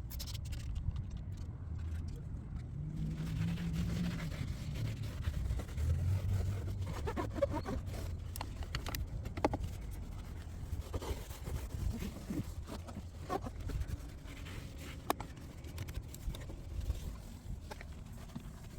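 Cloth wiping and handling on a car's door and interior trim: scattered small scrapes and clicks over a steady low rumble.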